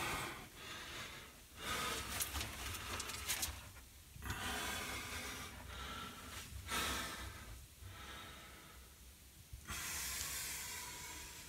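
A person breathing heavily close to the microphone: slow, long breaths, each lasting one to two seconds, with short quiet gaps between them.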